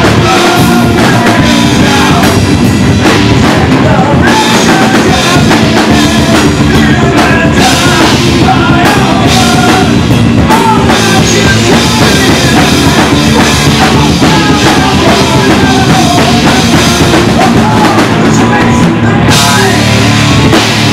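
Heavy metal band playing live: distorted electric guitars, bass and drum kit, loud and continuous, with a crashier stretch near the end.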